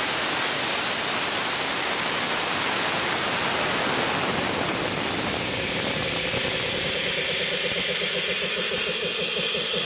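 Tanabe H-74 two-stage reciprocating marine air compressor, driven by an electric motor, running on a test bed: a steady loud mechanical running noise with a heavy hiss. A fast rhythmic beat from the compressor comes through more clearly in the second half.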